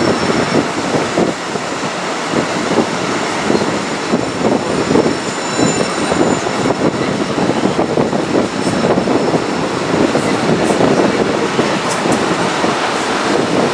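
Train rolling along the track, heard from a carriage window: a steady rumble of wheels on rail with rapid clatter over the points and a faint high wheel squeal around the middle.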